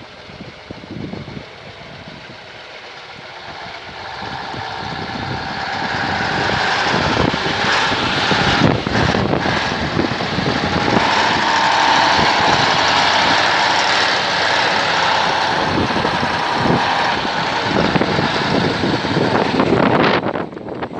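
KrAZ-260 truck's YaMZ-238 V8 diesel running, growing louder over a few seconds and then holding steady, with wind noise.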